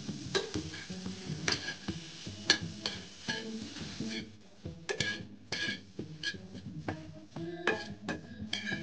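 Spatula stirring and scraping onion and garlic pieces around a frying pan as they are dry-roasted, with irregular scrapes and clicks against the pan.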